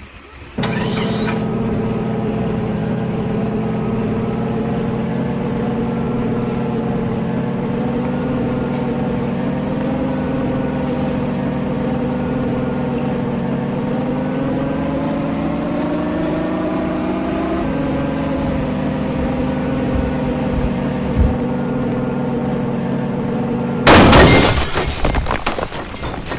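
Car engine running steadily, its pitch slowly climbing and then dropping suddenly as if shifting gear, followed near the end by a loud crash with breaking and shattering.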